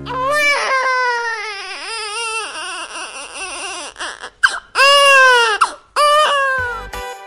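Newborn baby crying in several long, wavering wails, the loudest about five seconds in.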